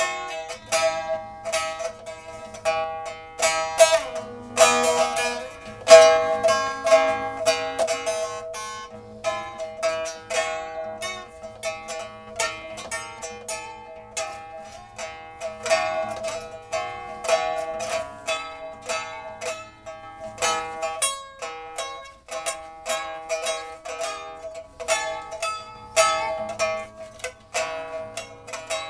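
Instrumental music on a plucked zither-like string instrument: a steady stream of quick plucked notes, each ringing briefly and fading.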